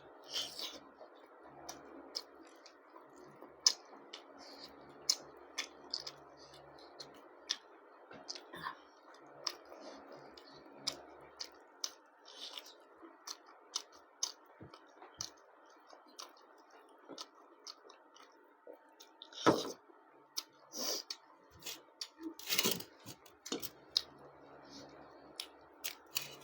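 Close eating sounds: a person chewing goat lung curry with rice and roti, with many small wet mouth clicks and smacks and a few louder bursts late on.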